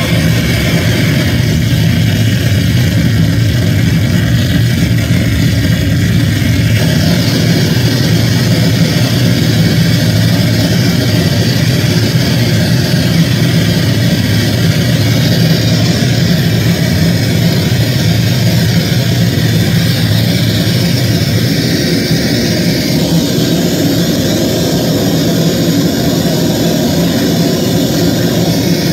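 Live harsh noise music through a club PA: a loud, steady wall of dense static over a heavy low rumble, with a brighter hiss thickening about seven seconds in.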